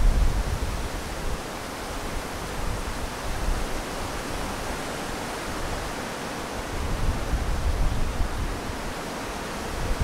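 Strong wind rushing through the leaves and branches of willow trees as a steady, even rustle. It swells in gusts with a low rumble right at the start and again around seven to eight seconds in.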